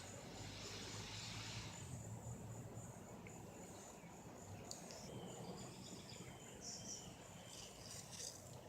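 Faint outdoor ambience: insects trilling steadily at a high pitch, with a few short bird chirps in the second half.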